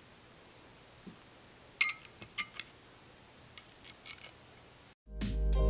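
Small metal screws and metal bumper-mount pieces clinking and tapping as they are handled, a few light clicks with a short metallic ring about two seconds in. Background music comes in near the end.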